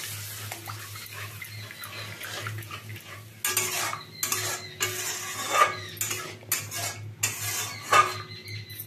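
Flat metal spatula scraping and knocking against a metal kadai while stirring a watery masala gravy, over a faint sizzle. The scrapes start about three seconds in and come irregularly, with two louder knocks near the middle and near the end.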